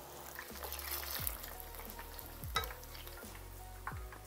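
Battered shiitake mushrooms deep-frying in hot oil: a steady sizzle and crackle of bubbling oil, with a few sharp clicks, the loudest about two and a half seconds in.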